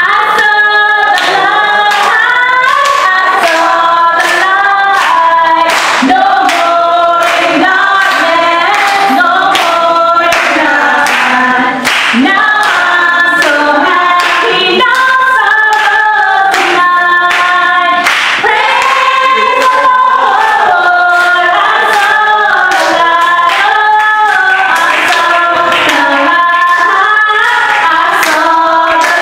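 A woman singing a gospel song into a microphone. Steady hand clapping keeps time, about two claps a second.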